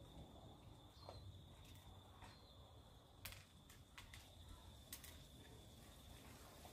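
Near silence: faint outdoor background with a steady high-pitched tone and a few faint scattered clicks.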